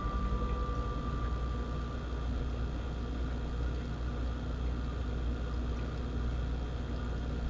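Aquarium filter and aeration running: a steady low hum under a continuous hiss of bubbling water.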